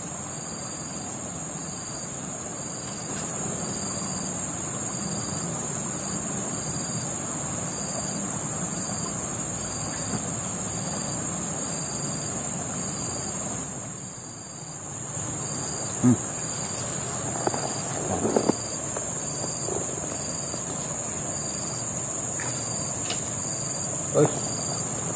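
Steady high drone of forest insects, with another insect pulsing in an even rhythm about once a second. A few brief, louder short sounds come a little past the middle and again near the end.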